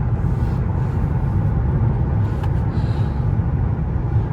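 Steady low rumble of road and tyre noise heard inside the cabin of a 2024 Mercedes-Benz S580 cruising at a constant speed.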